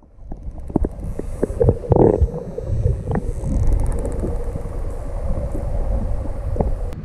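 Muffled underwater rumble and sloshing picked up by a camera held beneath the surface, with scattered clicks and knocks and a faint steady hum.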